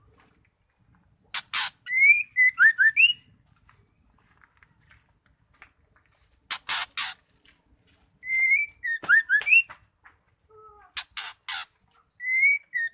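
Female white-rumped shama calling, the same phrase three times: two or three harsh, rasping notes, then a quick run of clear, upward-gliding whistles with thin high chirps over them.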